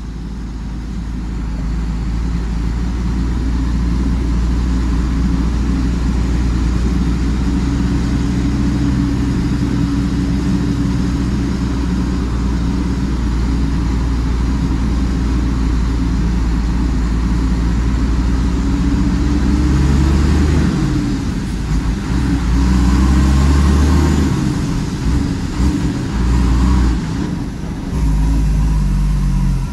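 Shacman F3000 dump truck's diesel engine running as it drives, heard from inside the cab: a steady low drone that builds over the first few seconds. About two-thirds of the way through, the drone turns uneven, dipping and swelling.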